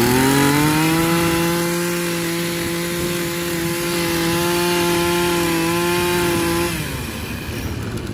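Makita 26cc two-stroke brush cutter engine revved up to full throttle and held steady for several seconds. Near the end the throttle is let off and the engine drops back.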